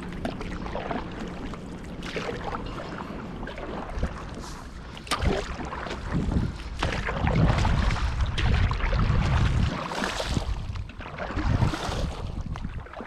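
Seawater sloshing and lapping in uneven swells, with wind buffeting the microphone and a couple of sharp knocks about four and five seconds in.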